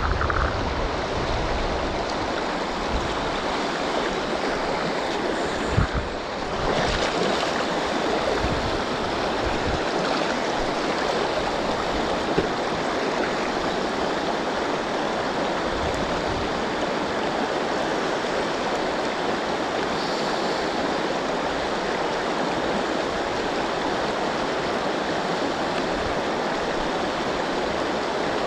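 Steady flowing water of a river rapid on the Yoshino River, with a brief thump about six seconds in.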